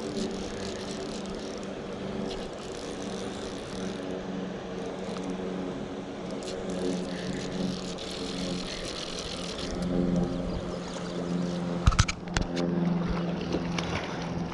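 Rushing river water and a fleece sleeve brushing and rubbing against the microphone, under a low steady hum that steps in pitch now and then. A few sharp knocks come about twelve seconds in.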